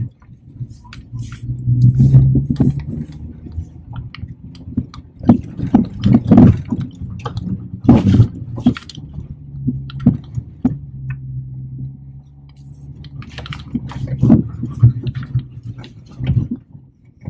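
Hyundai i10 hatchback's small petrol engine labouring steadily under load as it climbs a steep loose-rock track, heard from inside the cabin. Frequent sharp knocks and clatters come from stones and the car jolting over rocks.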